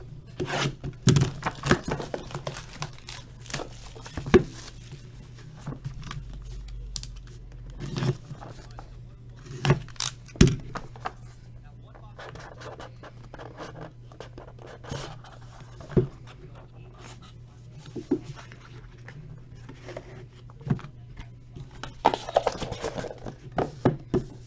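Sealed trading-card boxes being opened and handled: plastic wrap tearing and crinkling, and cardboard scraping, with scattered knocks and thuds over a steady low hum.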